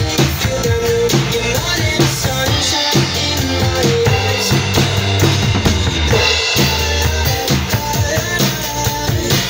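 Acoustic drum kit played along to a recorded pop song: steady snare, bass drum and cymbal hits over the track's bass line and melody.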